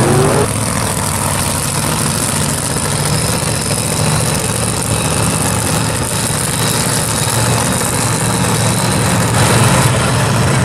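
Drag-race car engines idling loudly and steadily at the starting line, a deep rumble with a hissy edge, getting a little louder near the end.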